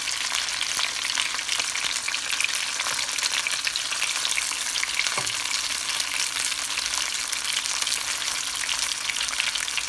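Coated chicken pieces sizzling in shallow oil in a nonstick frying pan: a steady, dense crackle.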